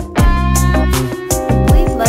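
Background music: an electronic track with a deep bass line that slides down in pitch twice, over a beat.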